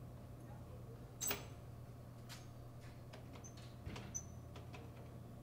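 Snack vending machine being handled and knocked, giving a few light knocks and clicks, the loudest about a second in, and a brief high squeak near four seconds, over a steady low hum.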